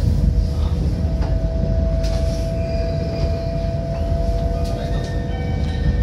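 High-speed bullet train running, heard from inside the passenger cabin: a steady low rumble with a steady whine over it.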